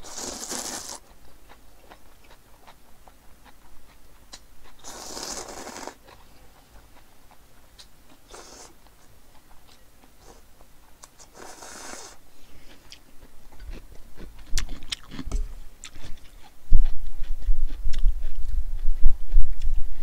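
Cold noodles slurped up out of broth in four long slurps, with quieter chewing between them. From about two-thirds of the way in, low thumps and knocks, loudest near the end.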